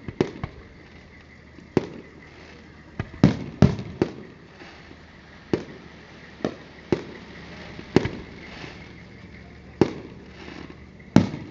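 Aerial fireworks shells bursting: about a dozen sharp booms at irregular intervals, a few in quick succession, each dying away in a short echo.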